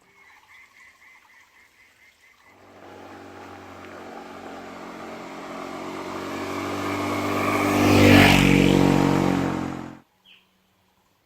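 A motor vehicle's engine drives past, growing louder as it approaches and loudest about eight seconds in, then cuts off suddenly. Before it arrives, a faint rhythmic croaking or chirping call of rapid pulses repeats.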